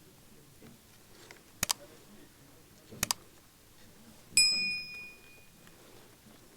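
Two sharp double clicks, then a small metal object is struck and rings with a clear, bell-like ping that fades over about a second.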